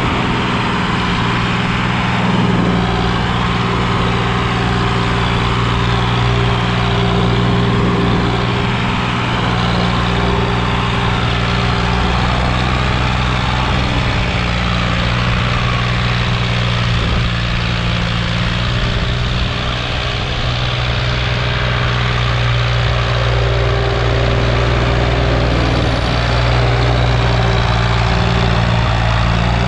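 Sonalika DI-745 III tractor's diesel engine running steadily under heavy load as it pulls a trailer heaped with soil, its pitch shifting only slightly.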